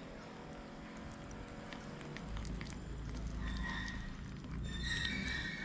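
Two kittens eating wet cat food from a plate, with faint chewing and lapping clicks. A high, drawn-out cat call sounds briefly about three and a half seconds in and again, longer, near the end.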